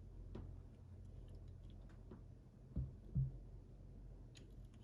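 Faint ticks and clicks from snap ring pliers being handled, with two soft knocks close together about three seconds in.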